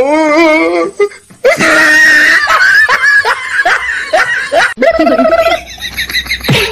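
A person laughing hard: a shrill burst of laughter, then a quick run of short "ha" bursts, each falling in pitch, about three a second.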